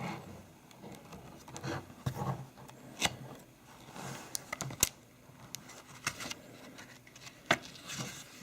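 Paper and card being handled: quiet rustles and scattered sharp clicks and taps, as the paper inserts are set aside and the book's glossy pages are handled.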